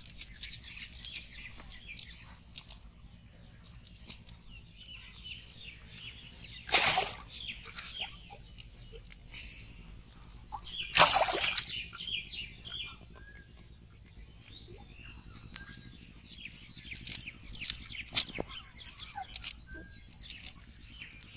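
Small birds chirping in the background, many short high calls and little trills. Two brief, louder noises stand out, about seven and eleven seconds in.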